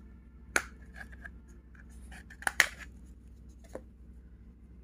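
Sharp plastic clicks and snaps from a KGTEL i9 feature phone's back cover being pried and worked off by hand. There are a few separate clicks, the loudest a quick double snap a little past halfway.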